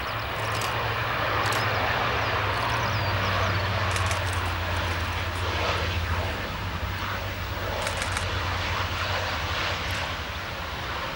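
Dornier 328-130 twin turboprop on its landing rollout: its engines and propellers run with a steady roar over a deep, even drone that grows stronger a few seconds in.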